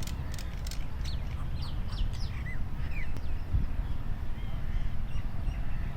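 Birds calling with a run of short, high chirps and quick sliding notes, most of them in the first half, over a steady low rumble.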